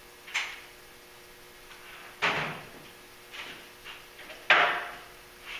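Three sharp clunks about two seconds apart, the last one loudest, each trailing off over about half a second.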